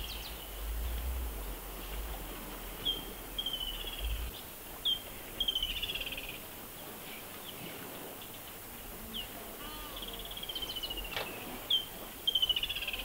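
A bird calling over and over: each call a single short high note followed by a quick falling trill, repeated about every two to three seconds. A low rumble sits underneath during the first few seconds.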